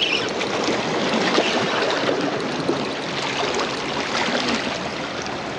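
Small waves washing and splashing against the jetty's rocks: a steady watery rush.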